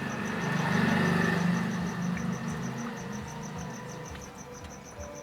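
Low vehicle engine hum that swells about a second in and then fades, with crickets chirping in a steady rapid pulse throughout.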